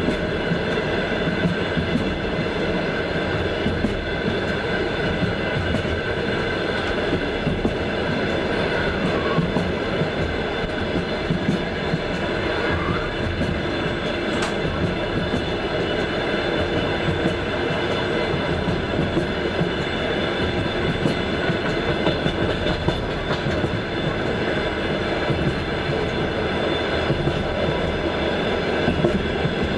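Wheels of a Russian long-distance passenger train clattering over the rails at steady speed: a continuous rumble with faint high ringing tones and one sharp click about halfway through.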